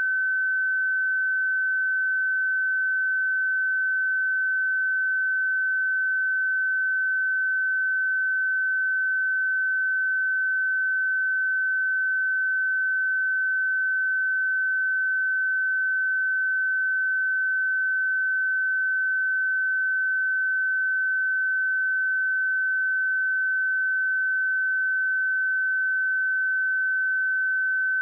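A pure 1527 Hz sine-wave test tone, held steady at one pitch and level.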